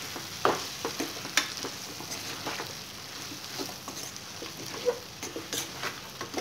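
Chicken pieces and masala frying with a steady sizzle in a pan while a steel spoon stirs them, the spoon scraping and clicking against the pan at irregular moments. The spices are being mixed through the chicken.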